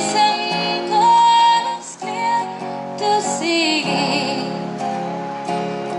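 Music: a song with a woman singing over guitar.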